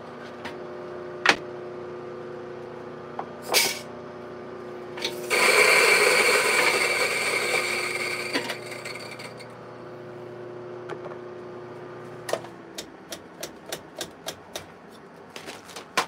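Mahlkönig EK43 burr grinder running with a steady hum, loud grinding of coffee beans from about five seconds in to about nine, then the motor spins on empty and stops about twelve seconds in. After it stops come a run of short light knocks and clicks.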